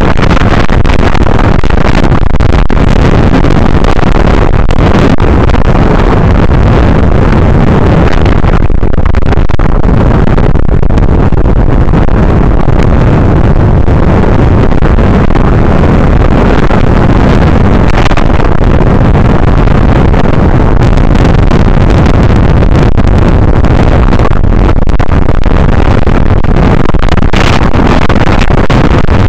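Strong wind battering the microphone with rough water, a loud, steady rushing roar with deep rumble and no pauses.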